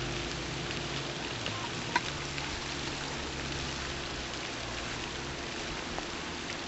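Steady, even background hiss, with a single sharp click about two seconds in.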